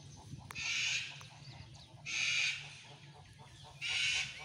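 An animal's harsh rasping call, repeated three times about a second and a half apart, with faint chirps between.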